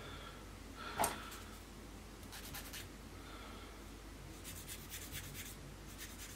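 Small hand tools handled on a cutting mat: one sharp tap about a second in, then several short runs of light scratching strokes.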